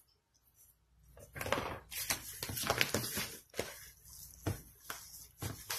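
Hand squeezing and kneading sticky almond-flour, cheese and egg dough in a plastic bowl: irregular squelches and rustles, starting about a second in.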